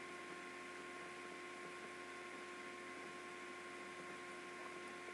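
Faint, steady electrical hum with a few constant tones over low hiss: room tone, with no other sound.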